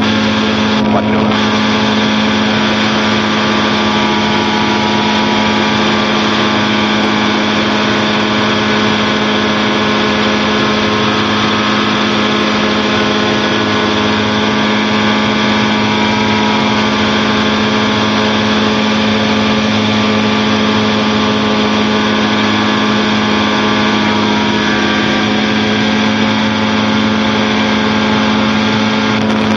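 Challenger II light-sport aircraft's engine and propeller droning steadily in flight, heard inside the cockpit.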